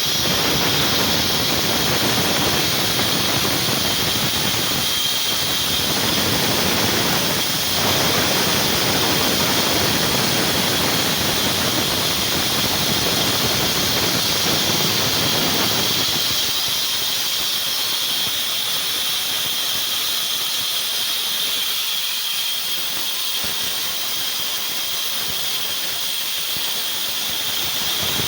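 An electric woodworking power tool running continuously with a steady, high-pitched whine over a hissing noise. The deeper part of the noise fades a little over halfway through.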